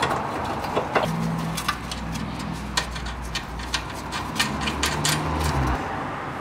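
Light, irregular metal clicks and scrapes as a new outer tie rod end's stud is seated in the steering knuckle and its nut is started with a wrench, over a low steady hum that stops near the end.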